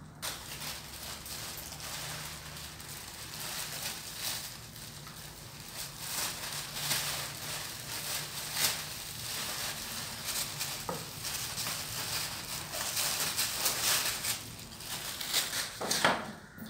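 A crinkly sheet rustling and crackling as a mother cat and kitten wrestle on it, with many irregular sharp crackles and the loudest one near the end.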